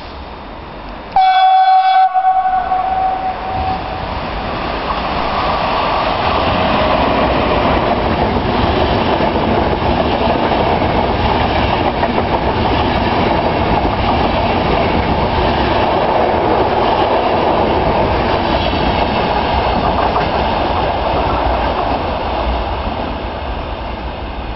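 An Intercity train gives one horn blast about a second in, then runs past close by. The passing coaches make a long, loud rush of wheels on rail that builds over a few seconds, holds, and eases off near the end.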